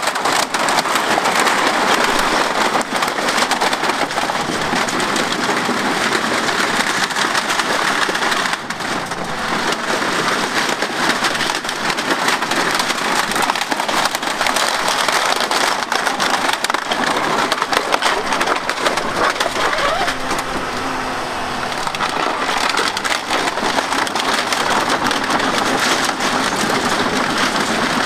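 Continuous crackling and clattering of white plastic scrap being scooped, dropped and crushed by the bucket of a Hyundai HX220AL excavator, with the excavator running underneath.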